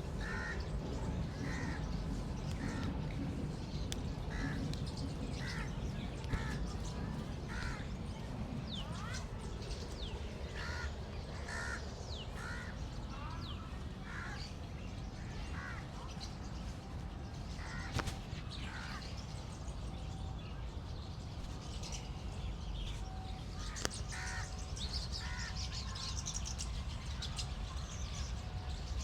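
Crows cawing again and again, with smaller birds chirping higher up over a steady low background rumble. A few sharp clicks stand out, about six, eighteen and twenty-four seconds in.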